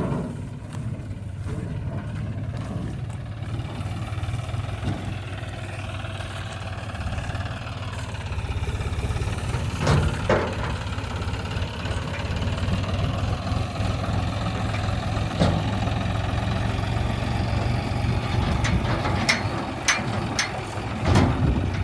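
Heavy diesel engine running steadily, its pitch rising and falling for a few seconds in the middle, with sharp knocks about ten seconds in and several more near the end.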